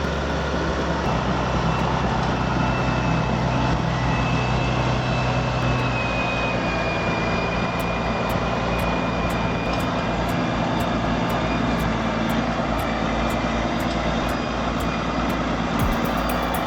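Heavy engine of a large machine or vehicle running steadily under load, with a faint high whine that drifts slowly in pitch.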